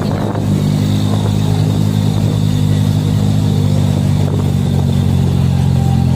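Truck engine running loudly at steady revs, a low, even drone.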